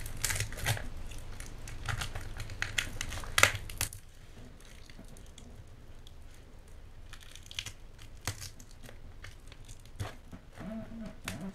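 Tape and wrapping being peeled and torn off a cardboard mailing tube: crinkling and tearing, busiest in the first four seconds, then softer rustling with scattered small clicks.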